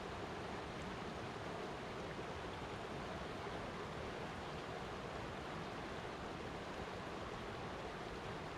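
Flowing water making a steady, even rush that does not change.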